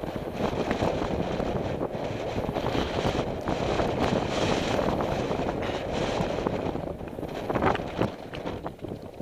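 Wind buffeting the microphone over the rumble and rattle of a mountain bike running down a rough, rocky dirt trail, with sharper knocks from the bike over stones near the end.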